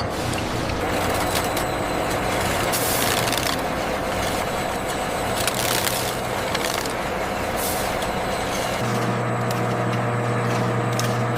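Factory production-line machinery running steadily, with three short hisses like released air. About nine seconds in, the low rumble drops away and a steady low hum continues.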